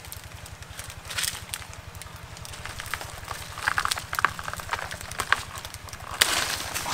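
Dry banana leaves crackling and rustling as they are pulled and broken by hand, in irregular bursts, the loudest near the end.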